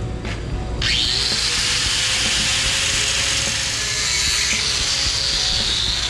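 Angle grinder with a cut-off wheel switched on about a second in, its whine rising as it spins up, then cutting through a steel steering column with a steady hiss.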